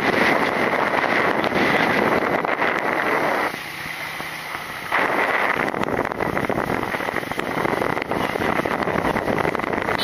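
Wind rushing over the microphone on a moving motorcycle, with the engine running under it. The rush drops for about a second and a half a few seconds in, then comes back.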